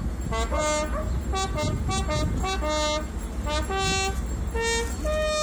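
A solo trumpet playing a slow melody of separate held notes, a funeral call for the military honours at the graveside.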